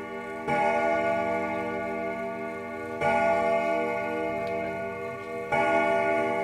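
A ringing, bell-like tone struck about every two and a half seconds, each strike ringing on until the next.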